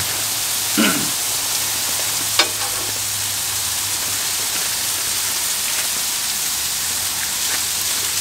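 Bacon sizzling on a flat-top griddle: a steady frying hiss, with a couple of short sharp clicks about one and two and a half seconds in.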